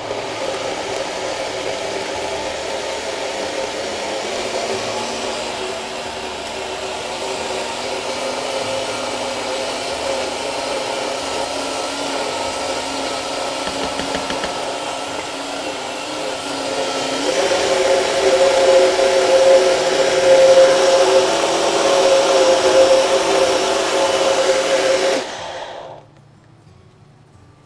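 Electric blender motor running steadily while blending garlic cream (toum). It gets louder about seventeen seconds in and cuts off abruptly near the end.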